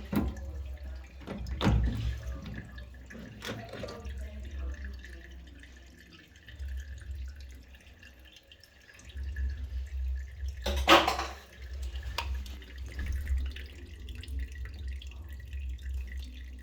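Water dripping and splashing, with several sharp knocks, the loudest about eleven seconds in, over a low rumble.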